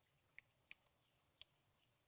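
A cat chewing on a squirrel: four faint, sharp clicks of teeth on bone and flesh in under two seconds.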